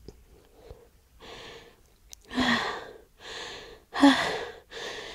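A woman's gasping, hitching breaths building up to an allergy sneeze. There are five breathy gasps in a row, and the second and fourth are louder, with a catch of voice.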